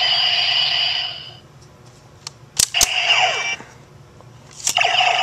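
DX Decadriver toy transformation belt playing electronic sound effects: a steady buzzing electronic tone fades out about a second and a half in. Then two sharp plastic clicks come as the buckle is pulled open, followed by short electronic tones with falling glides. Another click near the end brings on a second steady electronic tone.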